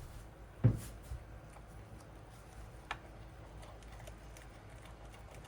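Faint, light ticking from a Jonsered 625 II chainsaw's crankshaft being turned by hand in its crankcase, a check of the main bearings for roughness. A single sharp knock comes about 0.7 s in and a smaller click near 3 s.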